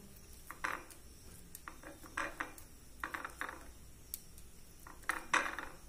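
Steel spoon on a ceramic plate while spreading filling on bread: a few faint, scattered scrapes and clinks.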